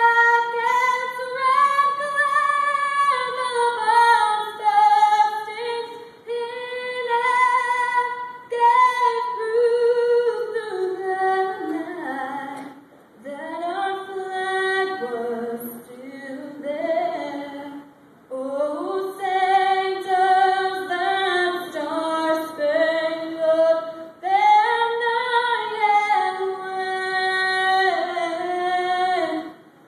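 A woman singing solo and unaccompanied into a handheld microphone, holding long notes with vibrato in phrases broken by short pauses for breath.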